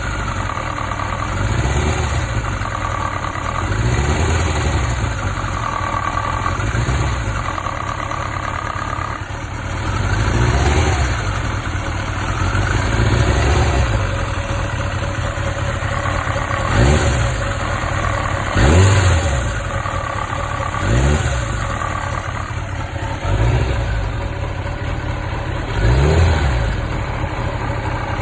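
1995 Kawasaki ZX1100 (ZZR1100) inline-four engine idling, blipped up about ten times with the revs rising and falling back each time. The owner traces a knock to the right-hand engine cover, where he believes the cam chain sits. He says the knock keeps time with the revs and stops as they rise.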